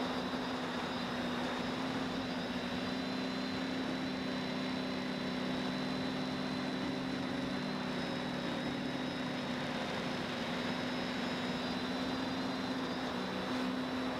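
Quadcopter's electric motors and propellers running steadily in flight, heard from the camera mounted on the craft: a steady low hum with a faint high whine above it.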